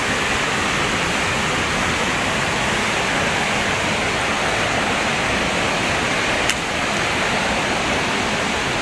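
River water rushing, a loud and steady roar. There is a single brief click about six and a half seconds in.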